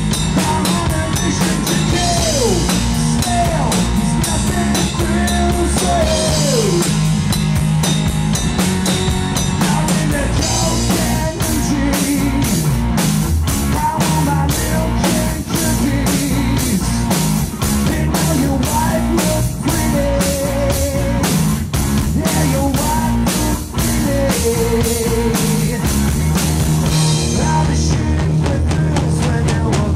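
Live rock band playing amplified: electric guitar, electric bass and drum kit. The drum beat grows busier and more pronounced about ten seconds in.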